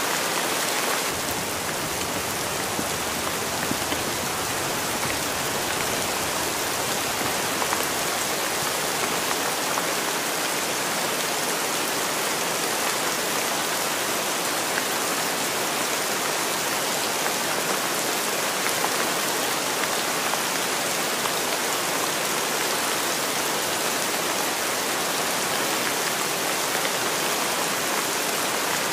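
Steady rain falling: a dense, even hiss of drops that does not let up.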